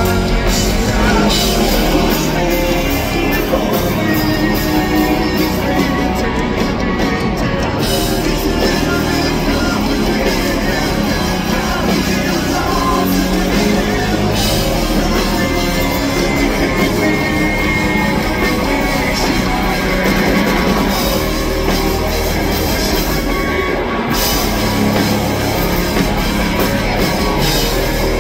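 A live hard rock band playing loud and steady: distorted electric guitars, bass and drums under a male lead vocal, heard from the audience.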